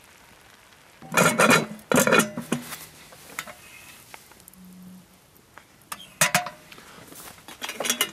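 Metal cookware clattering: pots, lids and utensils knocked and clinked together in four short bursts, the first two about a second in and the others near the end, some of them ringing briefly.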